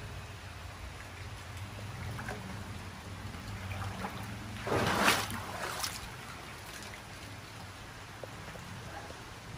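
Floodwater trickling in a drain channel, with a faint steady low hum underneath. A brief, louder burst of noise comes about halfway through.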